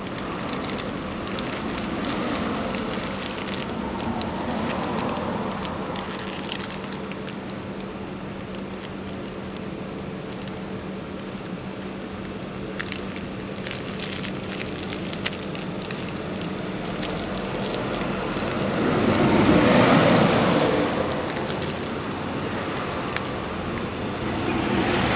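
Road traffic going by, with one vehicle passing loudly about twenty seconds in over a steady low hum, and paper wrapper crinkling in the hand in short crackles.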